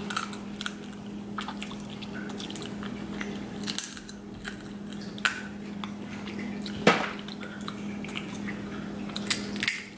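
Close-up wet eating sounds of snow crab legs in garlic butter: meat bitten and sucked from the shell, with wet smacks and small clicks scattered throughout and one sharp click about seven seconds in. A steady low hum runs underneath.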